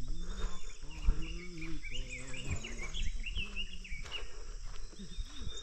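Open-country ambience: small birds chirping in quick high notes and insects trilling, with distant voices underneath.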